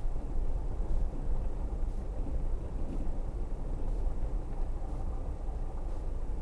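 Engine and tyre noise of a car driving slowly, heard from inside the cabin: a steady low rumble.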